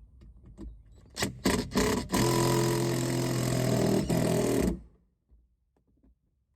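Cordless drill motor triggered in a few short blips, then run steadily for about two and a half seconds before stopping suddenly, as when driving a screw.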